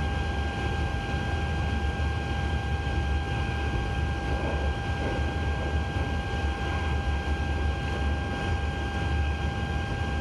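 Cockpit noise of a Boeing 777-300ER taxiing with its engines at idle: a steady low rumble and hiss, with a steady thin whine over it.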